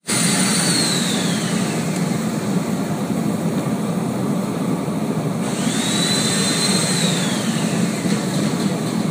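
Steady loud rushing of steam from a mochi-rice steamer, forced up through stacked wooden steaming boxes. A high whistling tone slides down in pitch near the start, and again after rising and holding in the second half.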